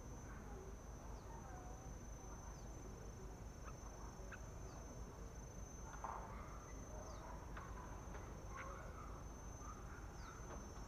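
Faint outdoor ambience: a steady high insect drone with short, falling bird chirps every second or so, and a few brief bird calls between about four and nine seconds in.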